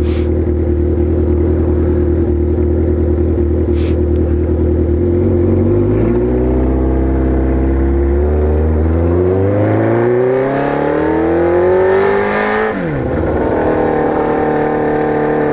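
Loud 2003 Kawasaki Z1000 inline-four engine running through Danmoto XG-1 slip-on mufflers, with some bark to the exhaust. The engine note holds steady for about five seconds, then climbs in pitch over about six seconds, drops sharply near the end and settles.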